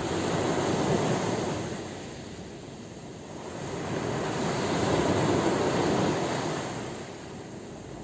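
Ocean surf washing onto the shore in two slow swells, one about a second in and a stronger one around five seconds in, each fading away.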